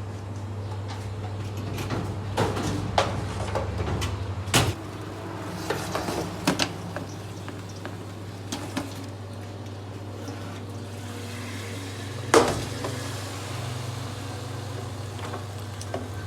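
Kitchen handling noises: scattered clicks and knocks of dishes, utensils or cupboard doors over a steady low hum. The sharpest knock comes about twelve seconds in.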